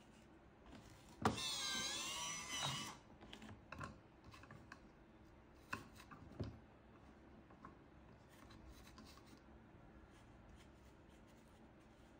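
Electric cigarette rolling machine's motor starting suddenly and running for about a second and a half with a whine that wavers up and down, then stopping. Two sharp clicks follow a few seconds later.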